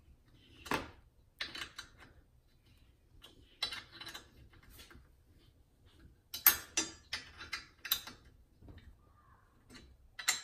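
Scattered light clicks and knocks of an LFD Off Road modular crossbar and the Toyota 4Runner's stock roof rail as the bar is handled and rocked by hand to test its fit, with a run of sharper clicks about six to eight seconds in. The small knocks come from the stock roof rail and the bar shifting just a little.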